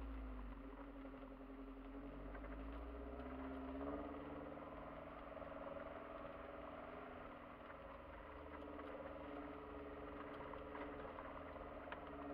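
Kia Sportage engine running as the car drives slowly over a snowy dirt track, heard from inside the cabin, its note rising and falling gently with the throttle over a low rumble, with occasional faint clicks.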